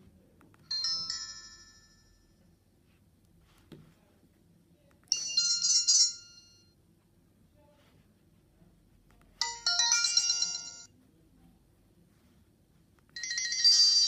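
Alcatel 10.16 feature phone's speaker playing four short preset message-alert tones in turn, each a bright, high-pitched chime of about a second and a half, with a few seconds of quiet between them. A faint keypad click falls between the first and second tones.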